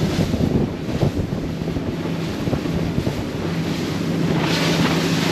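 Wind buffeting the microphone aboard a fast-running Sea Hunt center-console boat, over the steady drone of its outboard engine and the hiss of water along the hull, with a surge of spray noise about four and a half seconds in.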